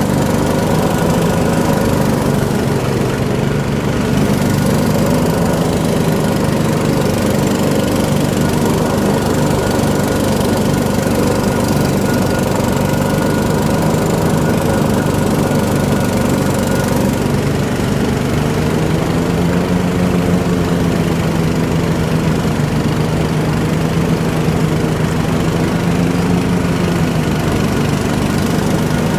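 Riding lawn mower engine running steadily while it cuts tall, thick grass. Its pitch sags a little and wavers from about eighteen seconds in.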